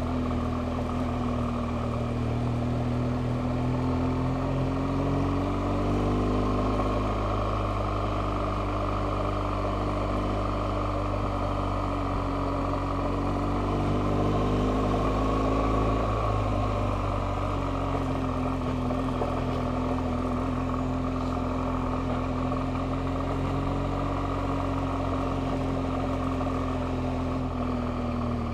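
BMW R1200GS boxer-twin engine running under way at a steady road speed. Its note climbs twice with the throttle, the second time about halfway through, then settles back.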